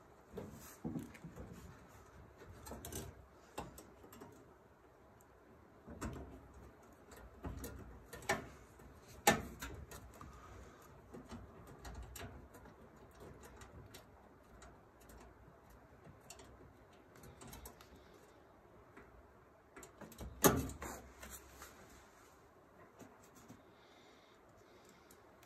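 Scattered light clicks, taps and knocks of hand work on parts and wiring inside a dryer's lower cabinet, with sharper knocks about eight, nine and twenty seconds in.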